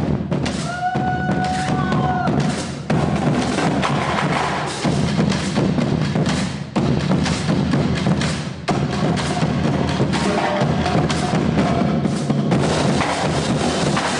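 High school marching drumline playing: snare, tenor and bass drums in fast, dense rhythmic patterns, loud throughout.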